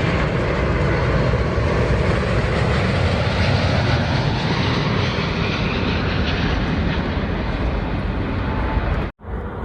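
Jet airliner passing close on its landing, its engines making a loud, steady rushing roar that slowly eases. The sound cuts off abruptly about nine seconds in.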